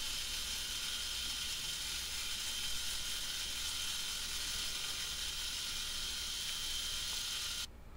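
Face mill on a Bridgeport milling machine taking a facing pass across rusty steel angle iron: a steady hissing cut with a thin high-pitched whine, which cuts off suddenly near the end.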